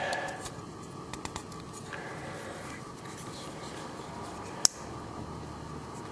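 Leatherman Rebar multi-tool being worked by hand: a few faint metal clicks, then one sharp click about three-quarters of the way through as a tool snaps into its lock.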